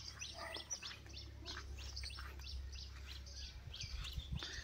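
Small birds chirping repeatedly, many short high chirps a second, over a faint low steady rumble.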